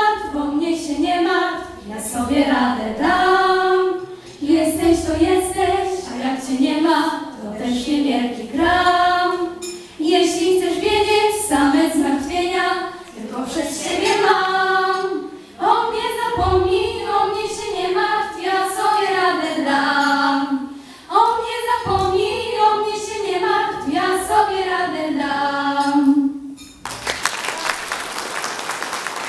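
Group of teenage girls singing a Polish song together into microphones, without instruments. The singing stops about 27 seconds in and audience applause follows.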